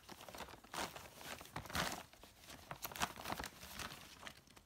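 Plastic mailer bag crinkling and rustling in irregular crackles as a stuffed plush toy is pulled out of it.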